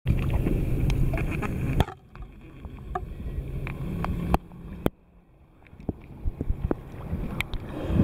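Ocean water sloshing and lapping against a camera held at the surface, with a loud low wash that drops away sharply about two seconds in and again a little past four seconds, and scattered short splashy ticks.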